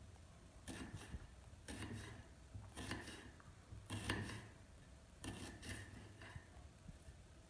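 Kitchen knife slicing an onion on a ceramic plate: a series of faint scraping cuts, about one stroke a second.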